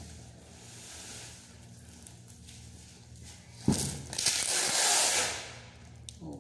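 Clear packing tape being pulled off its roll onto a cardboard box: one long tearing strip lasting about two seconds, starting a little past halfway, after faint handling noise.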